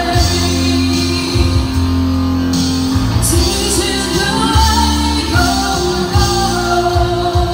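Live pop band: a woman sings lead into a microphone over sustained electric bass notes and the band's accompaniment.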